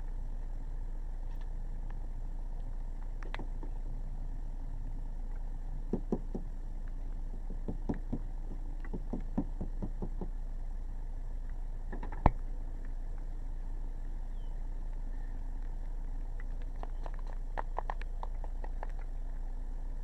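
Scattered light taps and short knocks from someone moving about and handling things beside a parked car, over a steady low rumble. One sharper knock comes about twelve seconds in, and a quick run of taps comes near the end.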